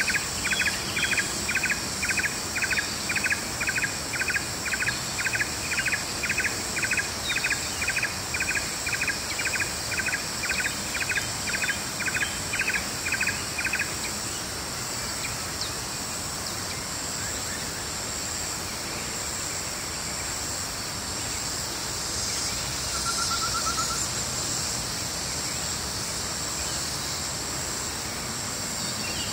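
Morning forest ambience: insects shrilling steadily and high-pitched, with a repeated animal call, about two notes a second, that stops about halfway through. A short trill follows later.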